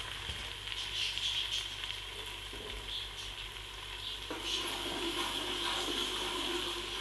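Onions, tomatoes and ginger-garlic paste sizzling in hot oil in an aluminium pressure cooker: a steady frying hiss with scattered crackles. A lower background rumble joins about four seconds in.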